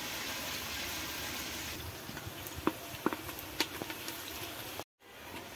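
Sliced onions sizzling steadily as they fry in hot oil in a pressure cooker, with a few sharp clicks of the stirring spoon against the pot about halfway through. The sound drops out for a moment near the end.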